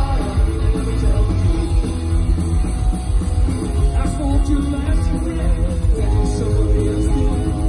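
A punk rock band playing live through a PA: distorted electric guitar, bass guitar and a drum kit.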